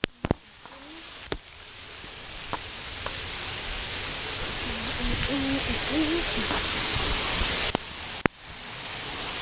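Water spraying and pouring onto a GoPro as it passes under the spray nozzles of a pool water-play structure: a steady hiss of water, dropping away for a moment near the end.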